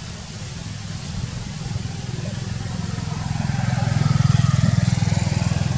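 A motor vehicle's engine running low and steady, growing louder as it comes closer and loudest near the end.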